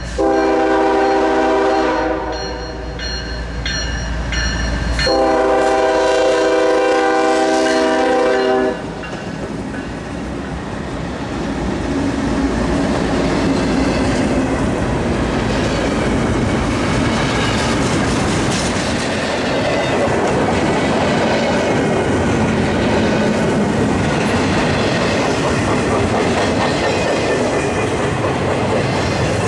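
Freight locomotive air horn sounding two long blasts, the second longer, as it comes up, then the steady rumble and clatter of a double-stack container train's cars passing close by on the rails.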